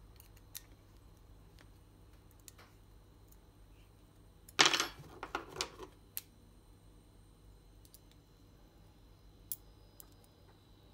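Small clicks of metal and plastic parts being handled, with a short cluster of sharp clicks and clatter about four and a half seconds in, as a motorcycle brake lever is worked free of its master cylinder with an Allen key.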